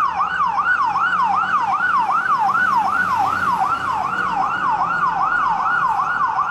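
Fire engine's electronic siren on a fast yelp, sweeping up and down about three times a second.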